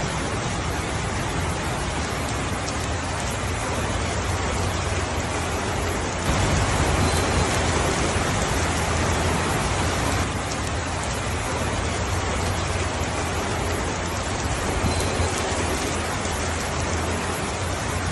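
Steady heavy rainfall with a deep rumble underneath. It grows louder for about four seconds in the middle, then settles back.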